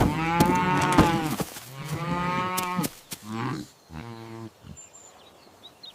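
Cattle mooing: two long, loud moos in the first three seconds, then two shorter, fainter ones between about three and four and a half seconds in.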